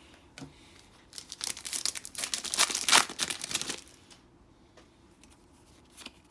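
Foil trading-card booster pack wrapper crinkling and tearing as it is ripped open, a burst of about two and a half seconds starting about a second in, with a few light handling taps around it.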